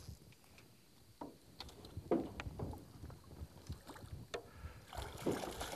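A rainbow trout thrashing in a landing net at the side of an aluminium boat: scattered small splashes and knocks begin about a second in and come more often near the end.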